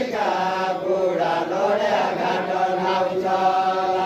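Men's voices singing a Deuda folk song together: a slow, chant-like melody with long held notes.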